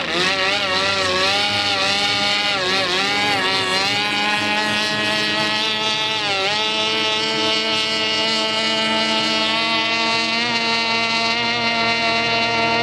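Outboard motor of a small racing hydroplane running flat out across the water. Its pitch wavers up and down for the first several seconds, dips briefly about six and a half seconds in, then holds a steady high note.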